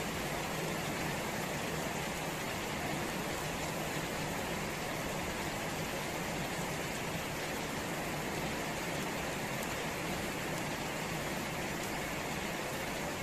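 Steady rain falling on garden plants, puddles and wet ground: an even hiss with no breaks.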